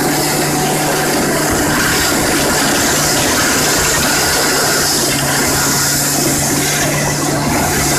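A motor vehicle's engine running steadily under loud rushing noise, the engine tone dropping a little about five seconds in.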